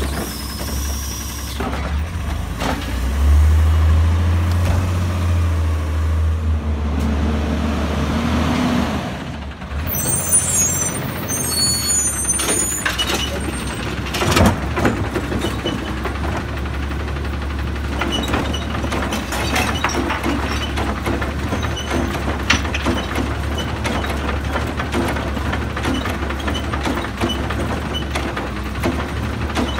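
Diesel engines of automated side-loader garbage trucks running with a heavy low rumble that swells for several seconds while the arm dumps a cart, then an air-brake squeal and hiss about ten seconds in. After that an engine idles steadily, with knocks from the arm lifting and emptying a cart.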